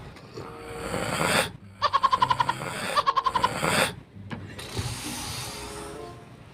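A man's put-on, exaggerated snoring: a long noisy in-breath that builds and cuts off, then two short rattling, fluttering snores, then another long breath.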